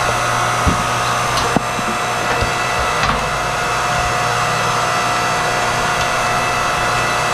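Electric hydraulic log splitter (8-ton, 2,300 W) running steadily as its ram pushes into a log, with a few sharp cracks of the wood giving way in the first few seconds.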